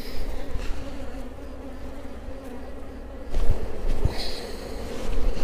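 Honeybees buzzing around an opened hive, a steady drone throughout. About three and a half seconds in, suit fabric brushes against the microphone for about a second.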